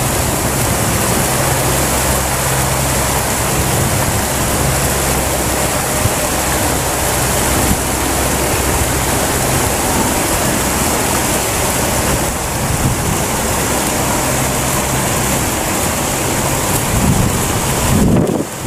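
Steady rush of river water with splashing as a cast net holding thrashing fish is dragged through the shallows, over a low steady hum that drops out now and then.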